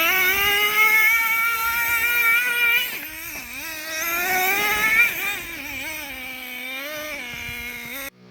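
Traxxas T-Maxx nitro RC truck's small glow-fuel engine running and revving, a high whine whose pitch rises and falls as the throttle is worked. It is loudest in the first few seconds, drops back about three seconds in, climbs again near five seconds, then runs lower before the sound cuts off suddenly just before the end.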